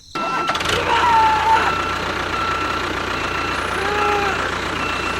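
A small motor running steadily with a faint high whine. It starts abruptly just after an edit cut, and a few short sliding tones sound over it.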